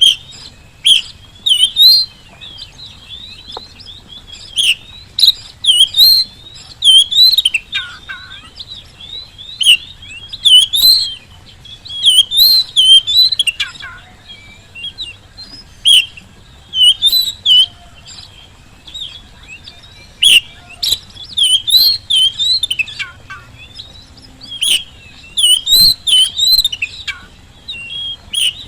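Oriental magpie-robin in full song: loud bursts of quick, varied whistled notes, repeated every second or so with short pauses between phrases.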